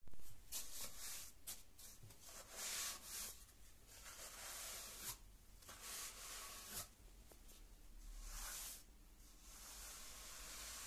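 Paint brush bristles sweeping dust and grit across a stair tread in a series of short, irregular brushing strokes. A softer, steadier brushing hiss follows near the end.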